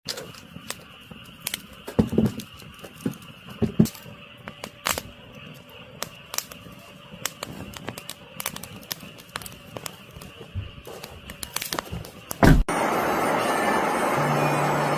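Scattered clicks and knocks of objects being handled for about twelve seconds, then an abrupt switch to steady road noise of a moving vehicle with a low engine hum.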